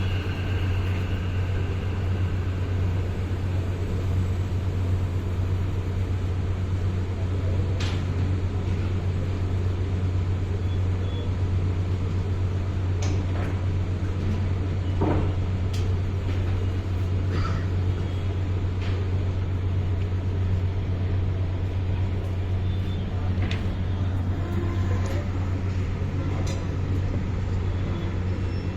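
A steady low hum, with a few faint clicks and taps now and then.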